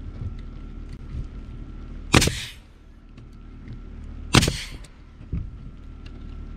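Pneumatic framing nailer firing twice into OSB roof sheathing, about two seconds apart, each shot a sharp bang followed by a short hiss of exhaust air.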